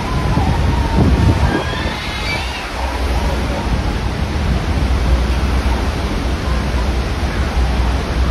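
Steady roar of Niagara Falls and the churning water below it, with a heavy low rumble. Faint voices show through in the first few seconds.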